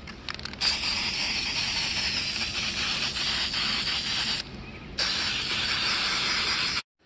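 Aerosol spray paint can spraying in two long hisses, the first about four seconds, the second about two, with a short pause between. The paint is misted on from a couple of feet away as a light dusting coat.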